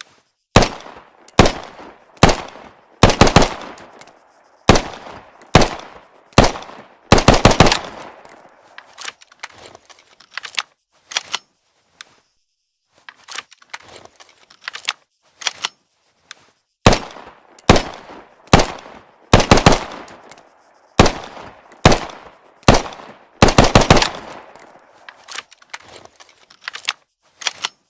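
Automatic pistol gunshot sound effect: loud single shots and quick strings of several shots, each with a short ring-out, broken by a couple of short pauses.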